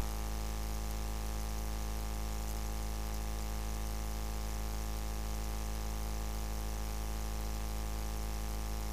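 Steady electrical hum: a low buzz with a stack of evenly spaced overtones, unchanging in pitch and level, with no crowd or game sounds over it.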